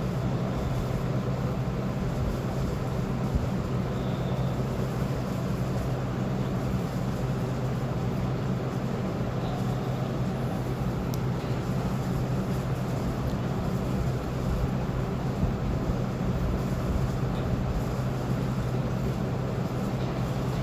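Hot air rework gun blowing steadily while the replacement ignition driver chip is heated onto the ECU board: a constant low hum over an even airy hiss.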